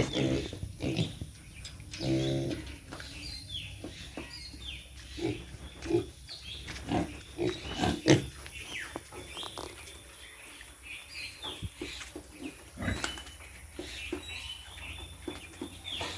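Pigs calling with many short grunts, and a longer pitched squeal about two seconds in.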